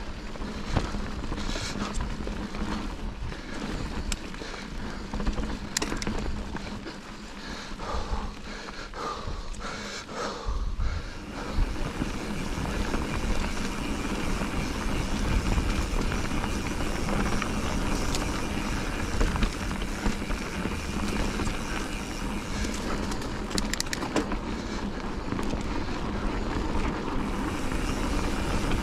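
Mountain bike descending a dirt trail: tyres rolling over the ground with scattered knocks and rattles, and wind rushing on the microphone, growing louder and steadier about ten seconds in as the speed picks up.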